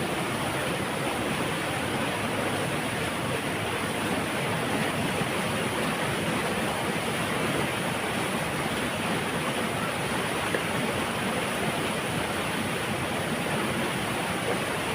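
Water rushing through a dam, a steady rumbling noise without breaks.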